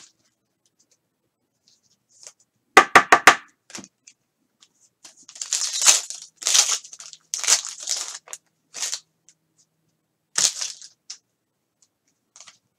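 Foil trading-card pack being torn open and its wrapper crinkled: a string of ripping, crackling bursts from about five seconds in. Just before, about three seconds in, comes a quick run of four sharp taps.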